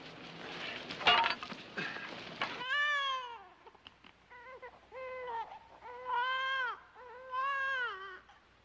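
A loud crash about a second in, over a rumble of noise, followed by four high, drawn-out wailing cries, each rising and falling in pitch.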